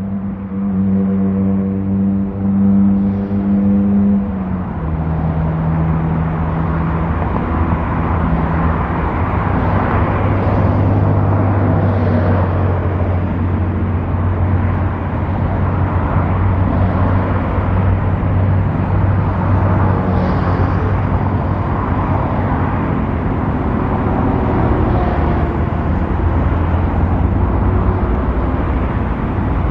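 Cessna 208B Grand Caravan EX's single PT6 turboprop engine and propeller running, a steady low drone under a broad rush. Its pitch steps down near the start and again about four seconds in.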